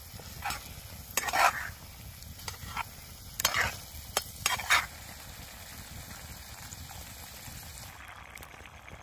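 A spoon stirring and scraping a pot of pea-and-paneer curry cooking on a fire, with several scrapes and clinks in the first half, over a steady sizzle of the food frying.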